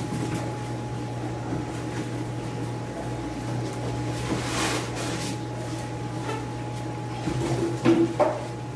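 A cardboard shipping box is handled and opened. A foam lid rustles as it slides out about halfway through, and cardboard and foam give a few sharp knocks near the end. A steady low hum runs underneath.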